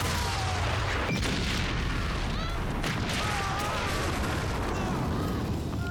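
A continuous string of film sound-effect explosions, blast after blast over a deep rumble.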